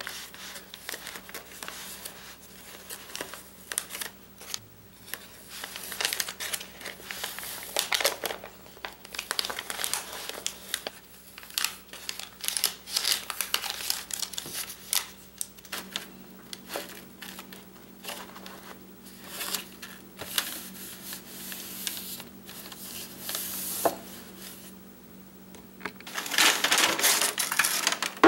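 Paper backing being peeled off self-adhesive shelf liner and the sheet handled: irregular crinkling and rustling of paper and plastic film, with louder, denser rustling near the end.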